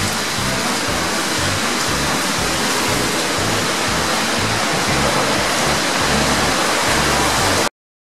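Steady rushing, water-like roar of a large indoor swimming-pool hall, with shifting low sounds underneath. It cuts off abruptly near the end.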